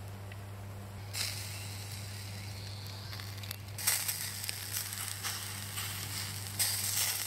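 Chicken and sausage sizzling on a stainless-steel grill over lump-wood charcoal, the hiss swelling louder about a second in, around four seconds in and near the end, with a few small clicks.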